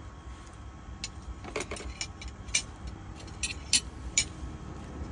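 Light clinks and clicks of tableware and shells on a dining table, in two short clusters about a second and a half in and around three and a half seconds in, over a low steady rumble.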